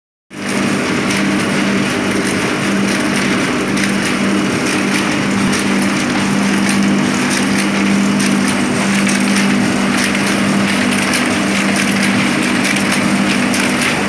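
Kalsi KMC-7000 chain-feed automatic thread book sewing machine running: a steady motor hum under a fast, continuous clicking of its sewing and feed mechanism.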